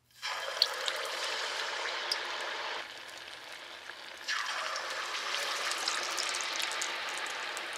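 Spoonfuls of salt-cod fritter batter sizzling in hot oil at about 350 °F. The sizzle eases after about three seconds and swells again a little past four seconds as a second spoonful goes into the oil.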